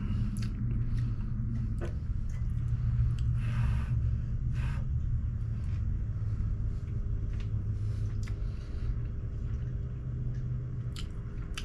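A steady low rumble, with a few short scrapes and clicks from a fork in a bowl and chewing as food is eaten.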